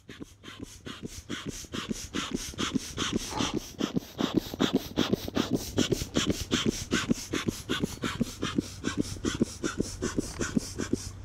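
A bellows foot pump being worked fast, giving a rapid, even run of air puffs about four or five a second as it inflates an inflatable boat. The puffs fade in and get louder after about two seconds.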